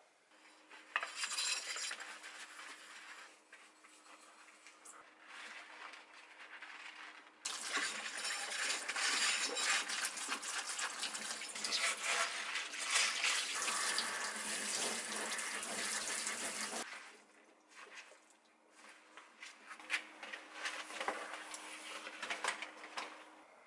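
Tap water running into a stainless steel sink while a glass bowl is washed by hand, with light clinks of dishes. The water runs loudly for about nine seconds in the middle, then stops, leaving scattered clinks over a faint steady hum.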